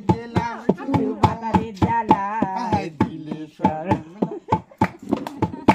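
Hand-played two-headed barrel drum (dhol) beating a quick steady rhythm of about three to four strokes a second, with a voice singing a folk song over it.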